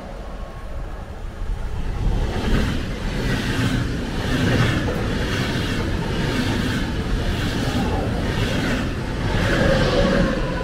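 Intercity train passing through a station at speed: rushing noise and a repeated clatter of wheels on the rails as the coaches go by. It is loudest near the end as the red DB Class 101 electric locomotive pushing at the rear passes.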